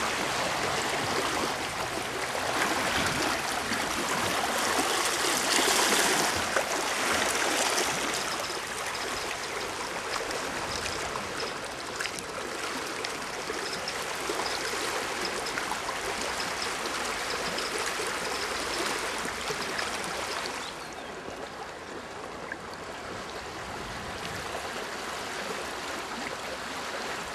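Fast-flowing floodwater of a swollen river rushing past, a steady rush of water. It swells louder about six seconds in and drops a little quieter about twenty seconds in.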